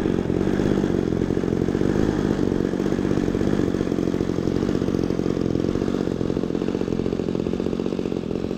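Engine of a Seagull Models Super Decathlon 120 radio-control model airplane running steadily on the ground, a little quieter near the end.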